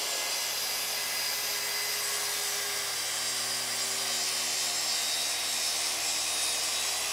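Track saw tilted to 45 degrees making a bevel cut along the edge of an oak-edged plywood panel, the blade running steadily under load through the cut.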